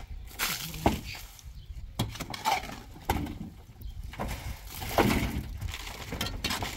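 Irregular scrapes and knocks of hand tools at work on a roof repair, with about half a dozen short, sharp strokes spaced a second or so apart.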